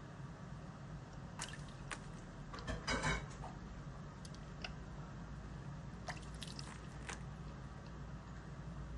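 African grey parrot splashing in a shallow ice-water bath: scattered small splashes and drips, with the loudest flurry of splashing about three seconds in and a few more wet clicks around six to seven seconds in.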